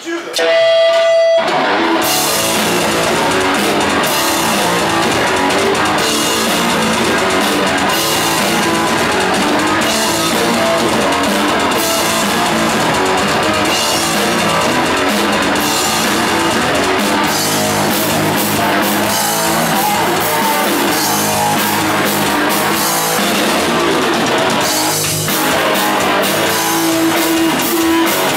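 Rock band playing live: electric guitar, bass guitar and drum kit kicking in together about two seconds in, after a brief single held note.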